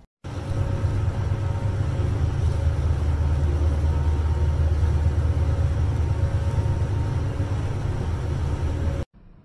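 A steady low rumble with faint humming tones above it. It starts abruptly and cuts off abruptly shortly before the end.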